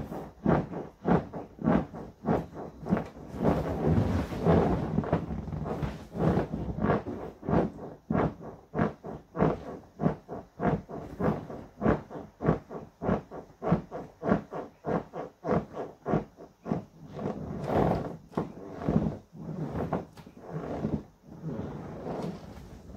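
Large inflatable vinyl rocking horse squeaking and rubbing under a rider bouncing on it, a steady rhythm of about two squeaks a second.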